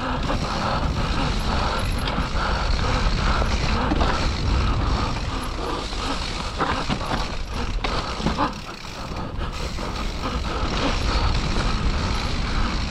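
Mountain bike ridden down a wet, muddy trail: the bike rattling and creaking over the rough ground, with a steady rumble of tyres and riding noise underneath and a brief lull about nine seconds in.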